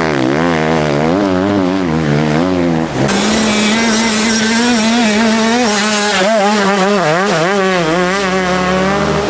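Enduro dirt-bike engines revving hard under load in sand, the pitch rising and falling quickly as the throttle is worked. About three seconds in, a cut switches to another bike, with a steadier engine note underneath the rising and falling revs.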